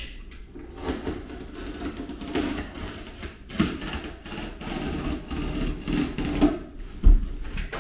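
Utility knife cutting the mesh edge off a sheet of Blanke Permat uncoupling mat on a plywood floor: an uneven run of short scraping slices, with a few sharper knocks, the loudest near the end.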